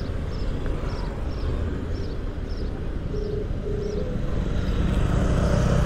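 Steady road-traffic rumble that grows a little louder near the end. From about three seconds in, a mobile phone's ringback tone sounds faintly: short double rings, the second pair starting about three seconds after the first, as an outgoing call rings.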